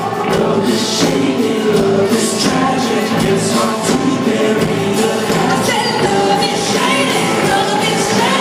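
Live band playing loudly with a female lead vocal over electric guitar and a steady beat, heard from the audience in a large, echoing arena.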